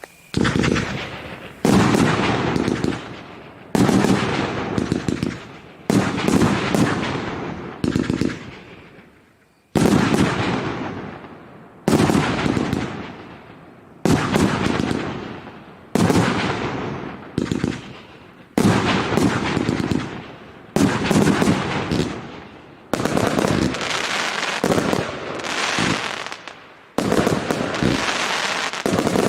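A 238-shot firework cake firing in volleys about every two seconds, each a sudden burst of bangs that fades away over a second or two. Toward the end the volleys come closer together and the firing barely lets up.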